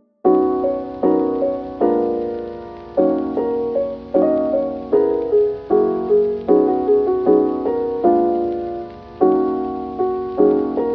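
Background music: piano chords played at an even pace, each one struck and fading.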